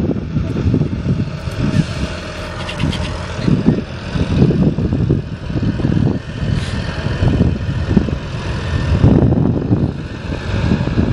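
Tractor engine running, mixed with irregular, gusty wind rumble on the microphone.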